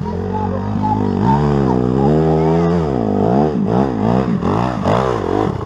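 Dirt bike engine running at a steady pitch, then revved up and down several times in quick succession from about three seconds in, as a rider works the throttle up a steep hill climb.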